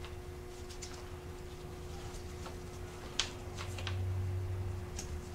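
Scattered small plastic clicks and rustles of gloved hands fitting ignition coil wiring and connectors, with one sharper click about three seconds in, over a steady background hum.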